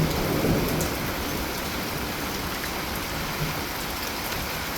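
Steady rain falling hard, an even hiss of drops with no let-up.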